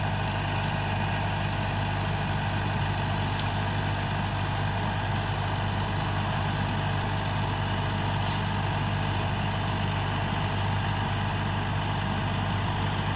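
Rice combine harvester running at a steady, unchanging speed, a constant engine drone.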